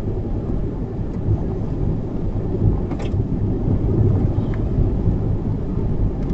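Steady low rumble of road and tyre noise inside a moving SUV, with a faint click or rattle about three seconds in.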